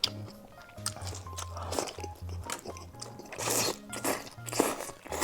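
Close-up crunching bites and chewing of fried skewers, several loud crunches in the second half, over background music with a repeating bass line.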